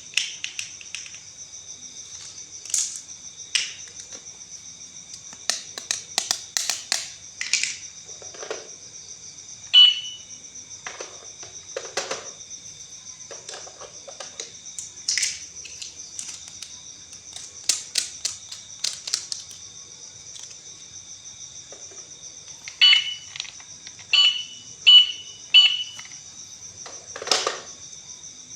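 Plastic toys being handled, with scattered clicks and knocks. Short electronic toy beeps sound once about ten seconds in and four times in quick succession near the end. A steady high insect chirring runs underneath.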